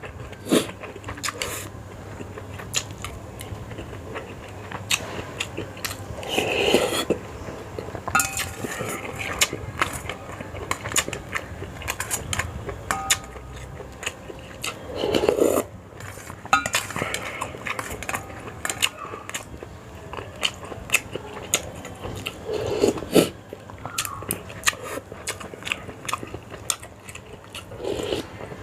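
A person eating a bowl of Sarawak laksa noodle soup: utensils clicking against the bowl and chewing, with about four longer, louder slurps of noodles and broth spread through.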